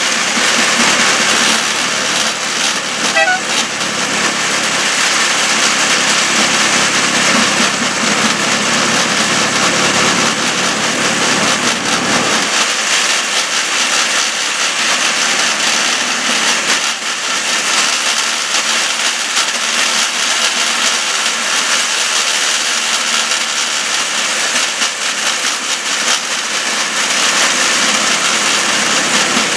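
Homemade rail draisine running along overgrown track: a small engine and the wheels on the rails, with bushes brushing against the vehicle. The low rumble drops away about twelve seconds in.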